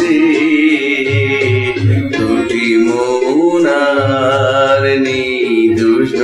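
A man singing a Bengali song in long held notes over instrumental accompaniment with a pulsing bass.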